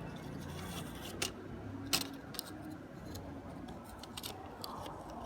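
Small, scattered clicks and taps of hard plastic parts being handled as a 3D-printed scroll wheel is pushed onto a computer mouse's encoder, the sharpest about one and two seconds in.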